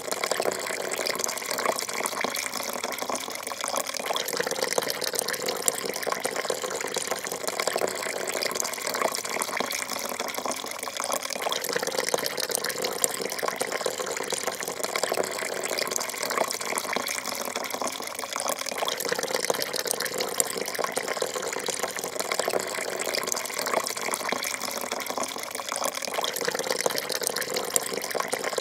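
A thin stream of coffee pouring steadily into a porcelain cup, splashing into the coffee already in it.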